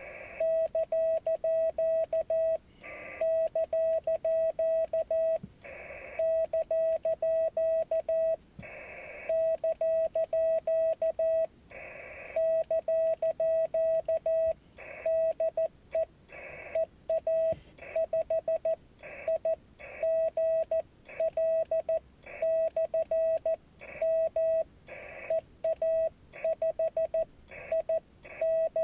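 Morse code sent with a paddle on a Yaesu FT-817D transceiver: a steady single tone, roughly 600 Hz, keyed on and off in quick dots and dashes, with brief hiss from the receiver in the longer pauses.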